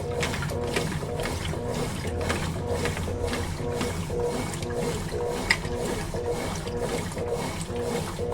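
Consul Facilite 11 kg (CWG11) top-loading washing machine running its wash cycle, its motor and wash mechanism going back and forth in a steady rhythm of about two strokes a second.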